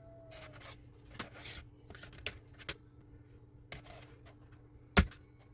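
Light scattered clicks and rustles of small model-kit pieces being handled and sorted, with one sharp, much louder click about five seconds in.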